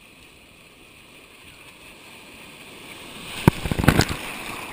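Ocean wave breaking over a camera at water level: a rush of water that builds over a couple of seconds, then whitewater splashing hard against the camera several times about three and a half seconds in, followed by churning foam.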